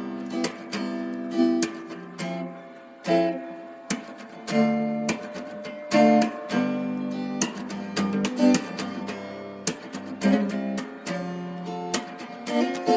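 Background music played on acoustic guitar: strummed chords and plucked notes.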